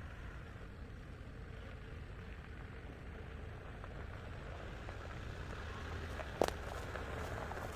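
Car running on the road: a steady low rumble of engine and road noise, with one sharp knock about six and a half seconds in.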